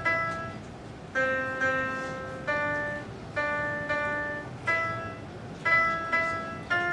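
Piano-like keyboard notes and chords played one after another through a MaKey MaKey controller, about one a second, each struck sharply and left to ring and fade.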